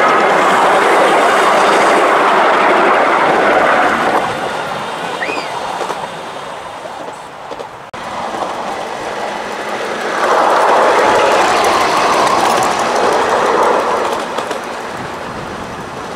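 7¼-inch gauge miniature railway trains running on the track, wheels clattering over the rails. The sound is loud for the first four seconds and then fades. A second train passes loudly from about ten seconds in and fades again after about fourteen seconds.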